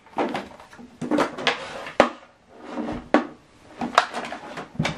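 Handling noise from a Samsung HW-B750D soundbar and its HDMI cable being turned over and set down on a tabletop: rustling and scraping, with sharp knocks about two seconds in, about four seconds in and again near the end.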